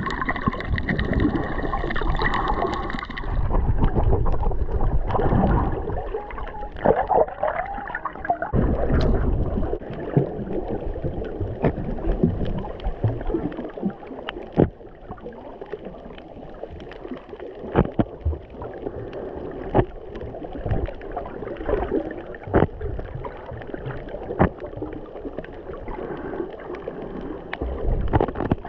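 Underwater sound picked up by a small camera's microphone: muffled water movement with a heavy low rumble for the first several seconds. After that a quieter bed of water noise with sharp clicks every couple of seconds.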